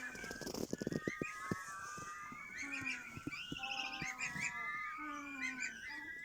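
A brood of goslings peeping together in many thin, overlapping calls, with a rapid run of low rattling pulses in the first second and a half: the goslings' sleepy snoring.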